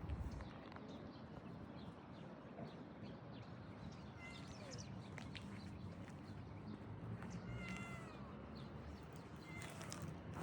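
Domestic cat meowing faintly, two short meows, one a little before the middle and one about eight seconds in, over a steady low background hum.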